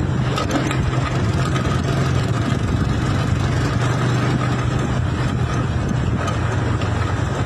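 A vehicle's engine running steadily with a constant low hum and road noise.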